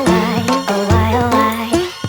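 Music with a steady rhythm and a wavering melody line over a low bass.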